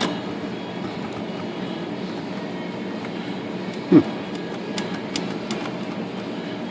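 Steady background hum with one sharp knock about four seconds in and a few light clicks soon after, from hands working a stuck type bar loose in a Smith Corona Corsair typewriter's segment.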